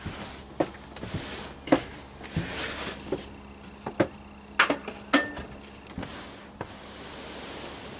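Irregular knocks, clicks and clunks of hands and tools working on a camper refrigerator, with a short scrape about two and a half seconds in.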